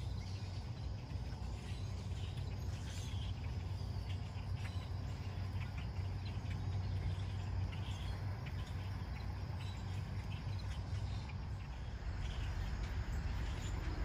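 A large flock of songbirds calling, with many short chirps overlapping, over a low steady rumble.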